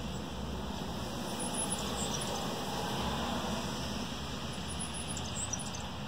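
Small songbirds chirping high and short: a few chirps about two seconds in and a quick cluster near five seconds, over a steady background hiss.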